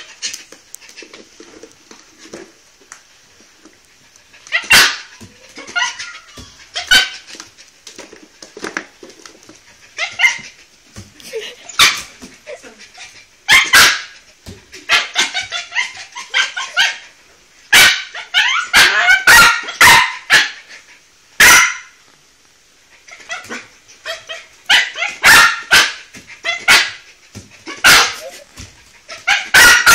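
Silky terrier barking in sharp, high barks, singly and in quick runs, while jumping up demanding something he wants. The first few seconds are quiet before the barking starts.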